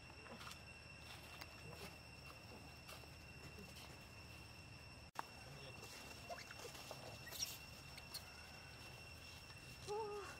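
Faint forest ambience with a steady high-pitched hum and a few small clicks and rustles, broken by a brief dropout about halfway. Near the end comes a short wavering animal call, the loudest sound.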